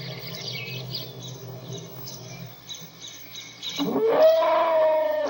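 Elephant trumpeting: nearly four seconds in, a loud call sweeps up in pitch and then holds a steady tone. Before it there is a low hum with scattered short high chirps.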